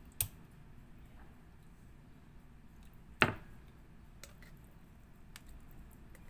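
A raw whole chicken handled on a wooden cutting board: two thuds as the bird is set down and turned, a small one at the start and a much louder one about three seconds later, with faint ticks of fingers and toothpicks in between.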